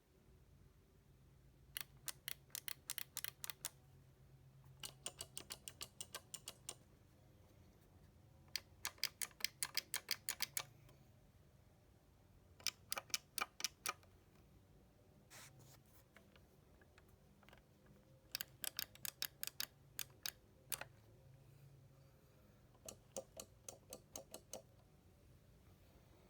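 Elevator panel push buttons clicking as they are pressed over and over, in quick runs of about eight to ten clicks a second with short pauses between the runs.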